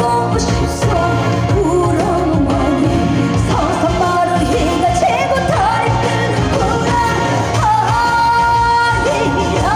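A woman singing a Korean trot song live over loud amplified musical accompaniment, her long held notes wavering with vibrato.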